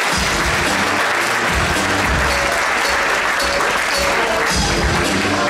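Audience applauding in a hall, while dance music with a heavy bass beat starts up under the clapping.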